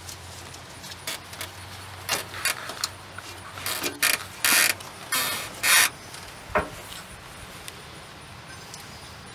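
V-belts being worked by hand onto the engine pulleys of a 1978 Ford F-150, with the engine not running: several short scraping rubs, bunched in the middle, then one sharp knock.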